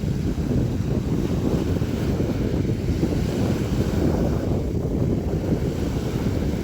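Sea waves splashing and washing, with a steady low wind rumble on the microphone.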